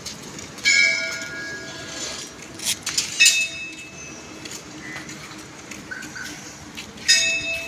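Temple bell rung three times, about a second in, near the middle and near the end, each strike ringing on and fading over a second or two.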